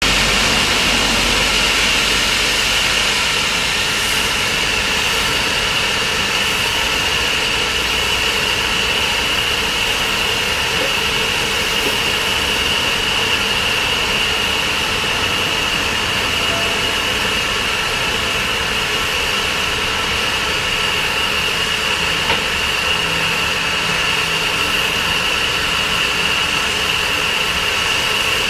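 Steady hiss of steam from a standing Somerset & Dorset Joint Railway 7F 2-8-0 steam locomotive, No. 53809, held at an even level throughout.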